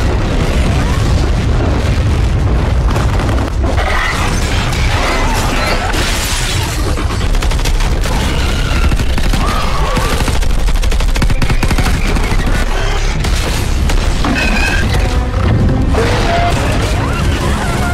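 Action-film sound mix: bursts of gunfire and heavy booms over a loud music score, without a let-up.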